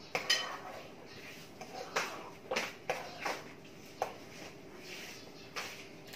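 Plates and utensils being handled: about seven light, irregular clicks and knocks, over a faint steady hum.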